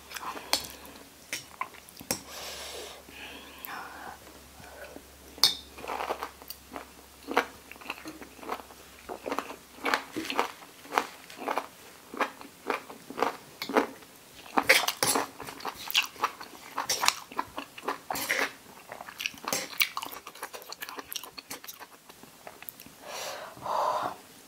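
Close-up chewing of boiled pork ear, its cartilage giving many sharp crunches, with a metal spoon now and then scraping and knocking in a granite mortar of chili dipping sauce.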